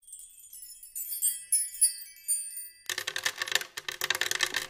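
Logo-intro sound effect: a few high, bright chime-like tinkles, then from about three seconds in a dense jingle of many rapid clinks.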